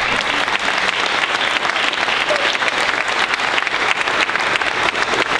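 Audience applause: many hands clapping together at an even level.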